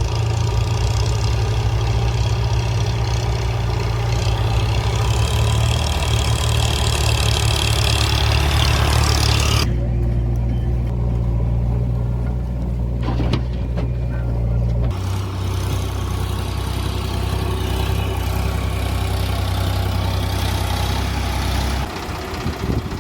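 Heavy vehicle engines running steadily with a deep, even hum. The sound switches abruptly about ten seconds in and again about fifteen seconds in, then drops quieter near the end.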